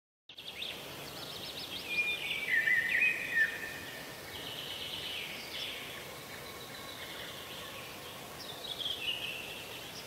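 Small songbirds chirping and singing in high, quick, sliding phrases, loudest between about two and three and a half seconds in and again near the end, over a steady outdoor hiss.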